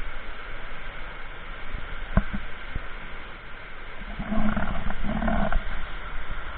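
Waterfall rushing steadily, with a sharp click a couple of seconds in and two short, loud, low-pitched vocal sounds in a row near the end.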